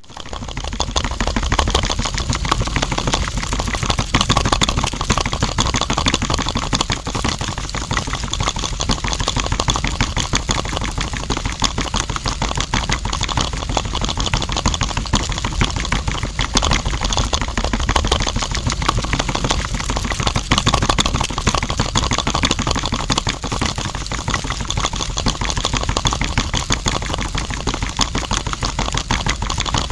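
Small electric motor of a miniature concrete mixer running steadily, turning its drum of wet concrete with a fast, dense clatter of gears.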